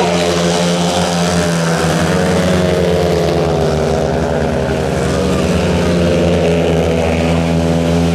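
Speedway motorcycles' single-cylinder engines running hard in a race, giving a loud, steady engine note whose pitch wavers slightly.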